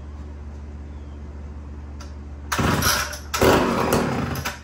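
Two-stroke Homelite chainsaw, its chain removed, revved in two short bursts a little over halfway through, the second longer and louder. Each burst ends abruptly and the saw falls back to a low running sound.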